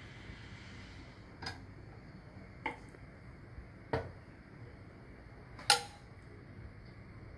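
Kitchen tongs clicking against the air fryer basket as marinated pork pieces are laid on its wire rack: four short sharp clicks, the last the loudest.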